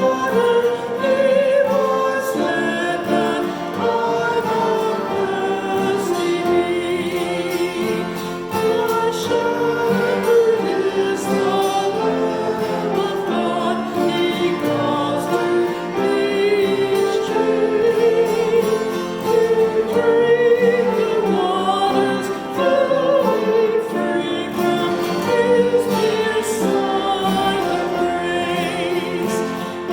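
Sacred choral music: voices singing a slow, sustained piece with vibrato over instrumental accompaniment.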